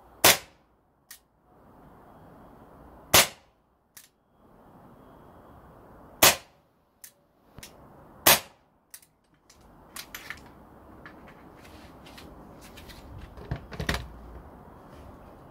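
Umarex Glock 17 Gen5 CO2 blowback pellet pistol firing four sharp shots, spaced two to three seconds apart, with fainter clicks between them. After the last shot come softer handling knocks and rustling.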